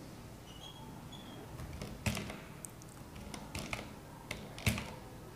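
A handful of scattered, sharp clicks from computer input at a desk. The loudest comes about two seconds in and another near the end, with softer ones between.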